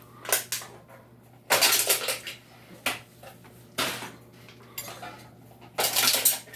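Canarm 36-inch industrial ceiling fan coasting down after being switched off, clanking and rattling like scrap metal in irregular bursts over a steady low hum. Its bearings are shot and it wobbles.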